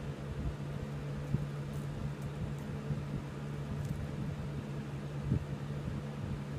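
Steady machine hum in a small room, with a few faint light clinks of thin metal necklace chains being untangled by hand and a couple of soft knocks.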